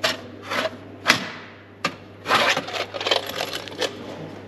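A series of sharp knocks and clacks, spaced out at first, then a quick rattling run of clacks in the middle, over a faint steady low hum.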